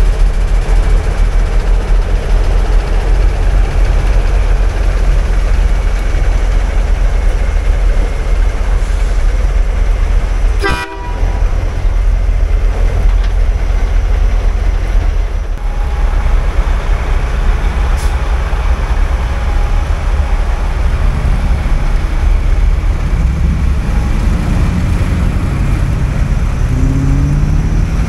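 Heavy diesel big-rig trucks running close by in a slow convoy, a deep steady engine rumble, with a truck horn sounding partway through and an engine revving up as a truck pulls away near the end.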